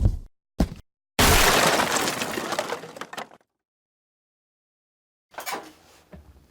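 A sudden loud crash-like noise that fades away over about two seconds, set between stretches of dead silence.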